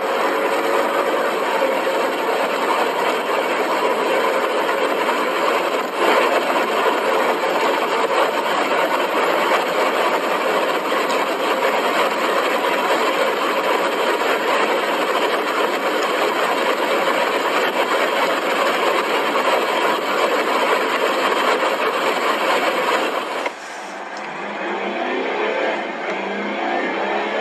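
Mercedes-Benz E63 AMG (W212) 5.5-litre V8 at full throttle above 185 km/h, heard from inside the car: a dense, steady rush of engine, wind and tyre noise. About 23 seconds in it cuts to a quieter Mercedes E220d (W213) 2-litre four-cylinder diesel accelerating hard from low speed, its engine note rising.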